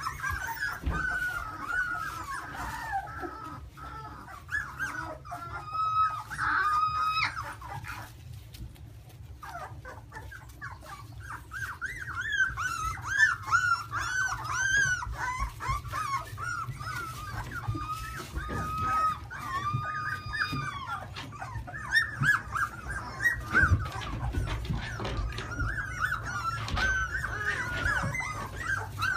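A litter of young Australian shepherd puppies squeaking and whining together: many short overlapping high squeaks with a few longer drawn-out whines, easing off briefly about eight seconds in.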